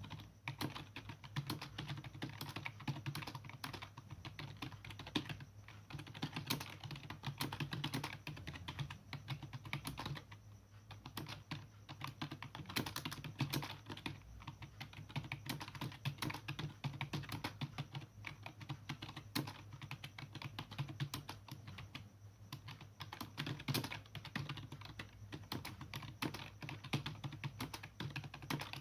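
Fast touch-typing on a computer keyboard during a timed typing test, at about 50 words per minute: several key clicks a second, with brief pauses about ten seconds in and again past twenty seconds.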